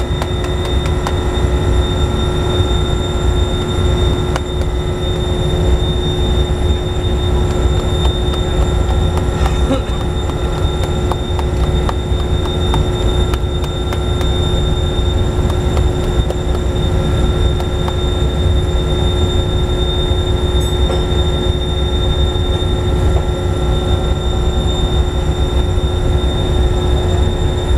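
Loud, steady industrial machinery drone: a deep rumble with several steady whining tones over it, unchanging throughout.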